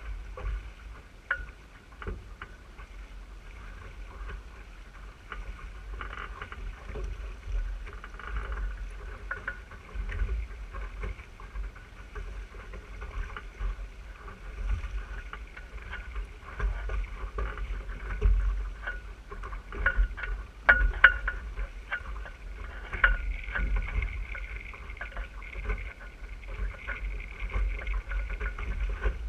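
Wind and water noise from an RS600 single-handed dinghy under sail: a low rumble of wind on the microphone, with water rushing and slapping along the hull. Sharp taps and knocks come more often in the last third.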